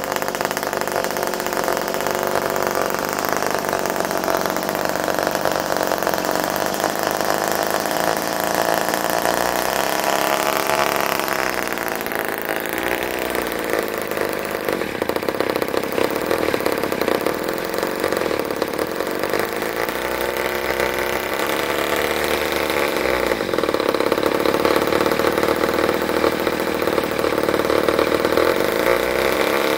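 Ohlsson & Rice 0.85 hp two-stroke engine running continuously. Its pitch rises about a third of the way in, and it runs a little louder through the last third.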